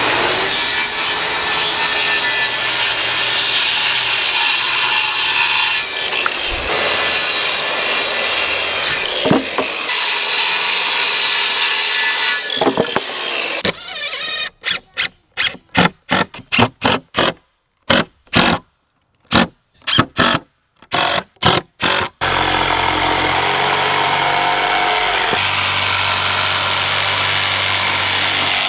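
A Porter-Cable circular saw runs through a rough-sawn board for about the first thirteen seconds. A cordless DeWalt drill then drives screws into the boards in a string of short bursts. Near the end a DeWalt jigsaw runs steadily, cutting a board.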